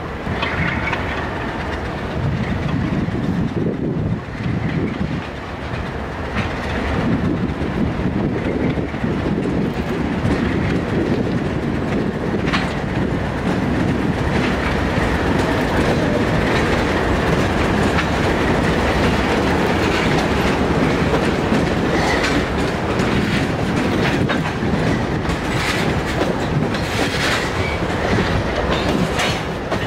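Freight train passing close by. Its diesel locomotives rumble past first, then covered hopper cars roll by, their wheels clicking sharply over the rail joints.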